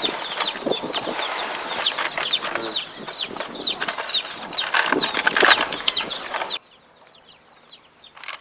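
A group of baby chicks peeping continuously, many short chirps that fall in pitch. The sound cuts off abruptly about six and a half seconds in, leaving only a few faint chirps.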